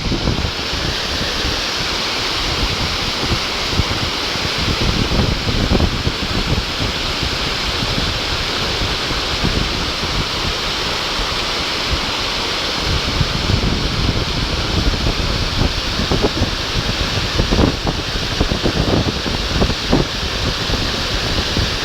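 Waterfall: a steady rush of falling water, with wind buffeting the microphone in gusts.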